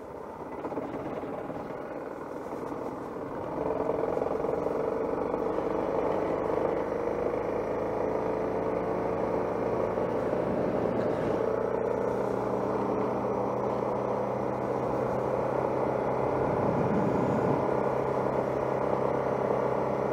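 Suzuki DR650's single-cylinder engine running as the motorcycle rides on a dirt road. It gets louder about three and a half seconds in as the bike picks up speed, then runs steadily.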